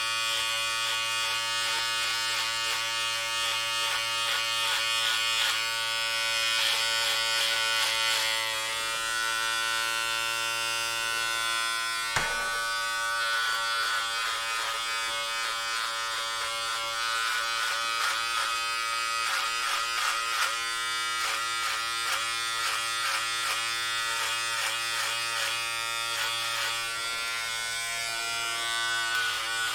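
Electric hair clippers running with a steady buzzing hum while cutting hair, the blades chattering through it. There is one sharp click about twelve seconds in.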